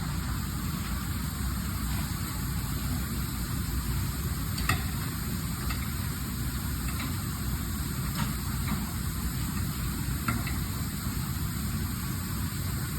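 Steady low machine running noise, with a few short sharp clicks and taps from tire work scattered through it.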